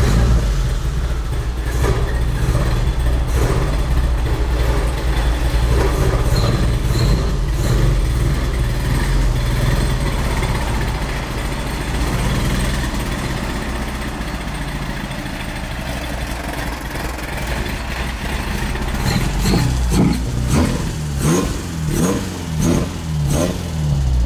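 Toyota AE86's engine breathing through Keihin FCR flat-slide race carburettors, running steadily just after start-up as the car is backed out. Near the end the engine speed rises and falls several times in quick succession.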